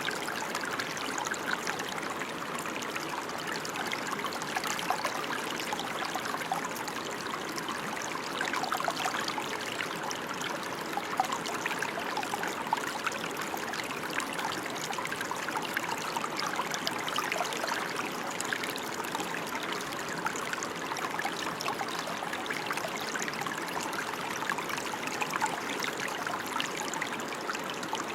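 Steady rain falling, a dense, even patter of many drops with no change in intensity.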